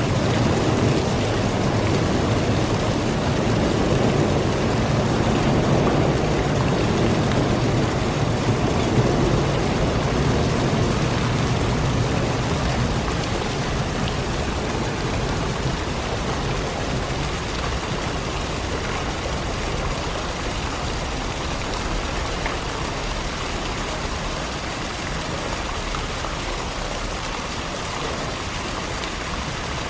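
Pool water splashing and sloshing as two polar bears wade through it, a steady rush that is louder over the first dozen seconds and then slowly eases off.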